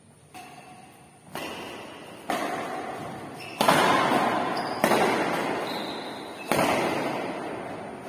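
Badminton rackets hitting a shuttlecock back and forth in a rally: about six sharp smacks roughly a second or so apart, the first one faint. Each smack rings on in the echo of a large bare hall.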